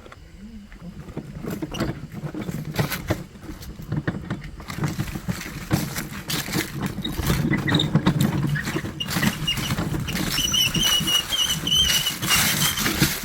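Pigs grunting and rustling, coming closer and louder over the first seconds. A wavering high-pitched squeal runs through the last few seconds.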